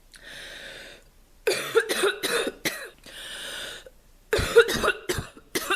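A sick girl's congested, crackly, barking cough: two fits of several quick coughs each, each fit preceded by a long, noisy breath drawn in.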